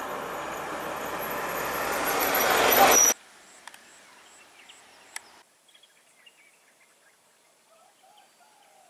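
A loud rushing noise that swells for about three seconds and then cuts off abruptly, followed by faint outdoor ambience with a few sharp clicks and soft chirps.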